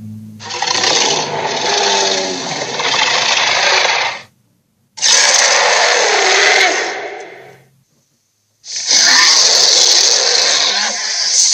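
Cartoon sea monster sound effect: three long growls, each a few seconds long, separated by brief silences.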